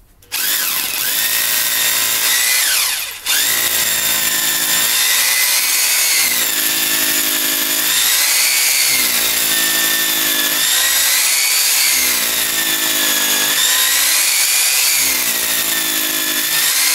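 Nakasaki 960 W rotary hammer drill with a 6 mm bit drilling into damp concrete. The motor runs, stops briefly about three seconds in, then runs on, its pitch dipping and rising every couple of seconds as the bit loads up. The wet concrete makes the bit clog.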